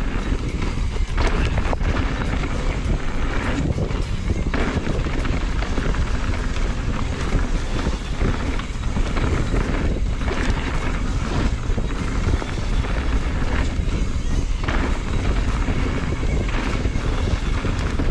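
Mountain bike riding down a dirt jump trail: steady rush of wind on the camera's microphone and tyre noise, broken by scattered knocks and thuds from the bike.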